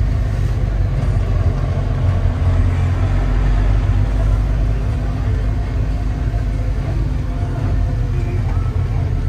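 Mercedes-Benz T1 310's engine running at low speed, heard from inside the cab as the truck rolls slowly across a paved yard: a steady, deep drone.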